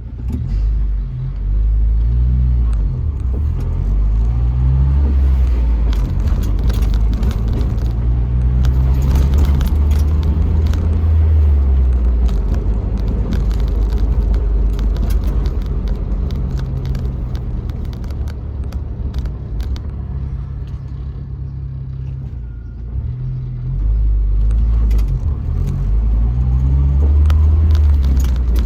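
1999 Jeep Wrangler TJ driving: steady engine and road rumble that eases off about two-thirds of the way through and then picks up again. No knock stands out; the owner takes the repaired rear lower control arm to have been causing the knocking.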